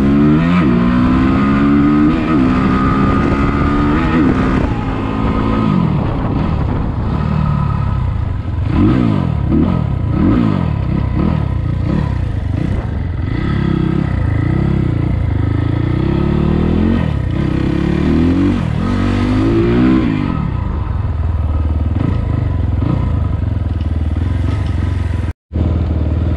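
The 2020 SSR SR300 dirt bike's single-cylinder four-stroke engine, on a newly fitted Lectron carburettor, running and being revved in a string of quick throttle blips. The pitch rises and falls over and over from about five seconds in to about twenty seconds, then settles to a steady idle. The revs pick up cleanly, with the well-metered throttle response of the new carb.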